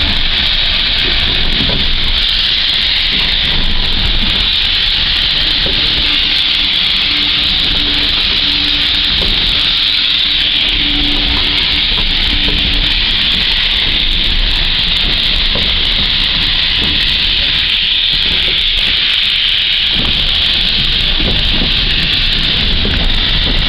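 Steam locomotive 4936 'Kinlet Hall', a GWR Hall-class 4-6-0, letting off a lot of steam in a loud, steady hiss as it leaves, with a low rumble underneath.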